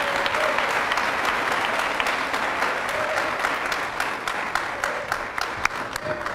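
Audience applauding, a steady patter of many hands clapping that thins out to scattered claps and fades near the end.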